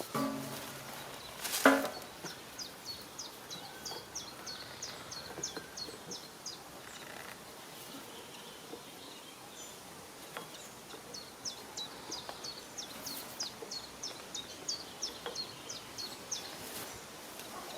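Quiet outdoor ambience with rapid, high chirps repeating in two long runs, from a small bird or insect, and one sharp knock about two seconds in.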